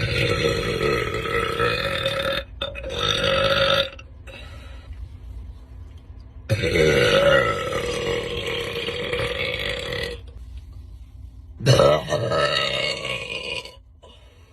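A person burping loudly: four long, drawn-out belches, the longest lasting about three and a half seconds in the middle.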